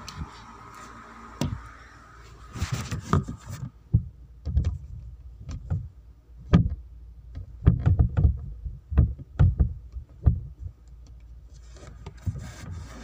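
A series of irregularly spaced knocks and thumps, some sharp, some dull, with short quiet gaps between, like bumps and handling of a phone that is being moved about and covered.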